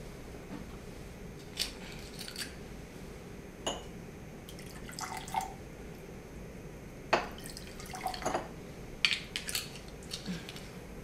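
Liquor poured from a bottle into small drinking glasses, in short gurgling pours, with a string of light glass clinks and taps as bottle and glasses are handled.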